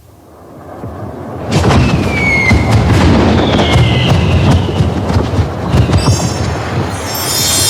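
Cartoon sound effects: a rumble swells over about a second and a half into a loud, crackling boom-like din, with whistling slides in pitch. High tinkling tones come in near the end.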